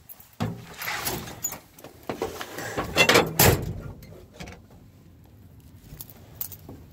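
Knocks, clunks and handling noises in the cab of a 1959 Ford F-600 truck, with two loud knocks about three seconds in and quieter rattles after. The engine is not running.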